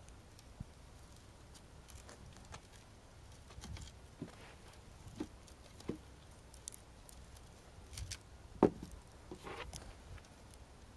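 Scattered light knocks, clicks and rustles of hands handling a quadcopter and a pack of taped beer cans on a plywood board, with one sharper knock about two-thirds of the way through followed by a short rustle.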